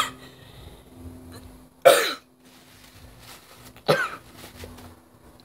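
A girl coughing severely into her cupped hands: three loud, harsh coughs about two seconds apart.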